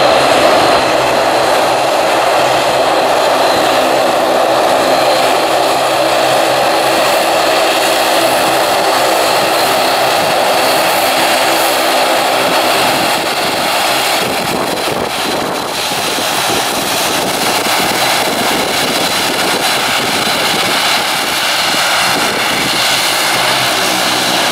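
Bombardier Dash 8 Q400's twin turboprop engines running as it taxis close past: a steady propeller drone with a thin high turbine whine. About halfway through, the tones spread into a broader rush as the aircraft goes by.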